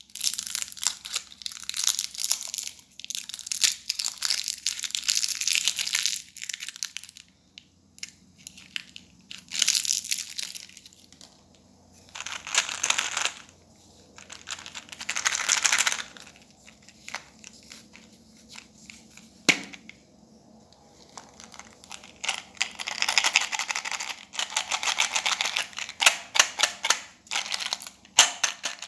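Candy packaging crinkling and being torn open, in stretches of several seconds with quieter pauses between and an occasional sharp click.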